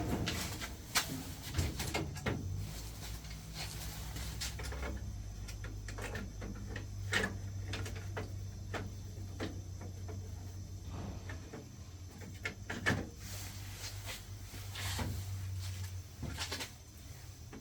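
A steady low hum, as from heating plant running, with irregular clicks and knocks of handling on top; the hum fades out near the end.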